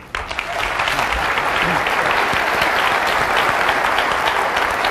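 Large auditorium audience applauding: dense, steady clapping that builds up over the first half second and then holds.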